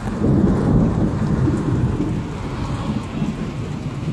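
Rolling thunder from a nearby lightning strike. It swells right away, is loudest for about two seconds, then rumbles on more softly, with steady rain falling throughout.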